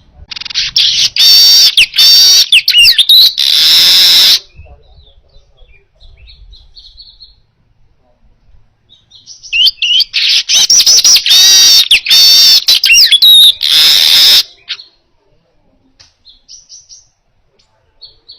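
Manyar weaver bird singing a rapid, high, chattering song with trills and gliding whistles, in two loud bursts of about four and five seconds, with faint scattered notes between them and near the end.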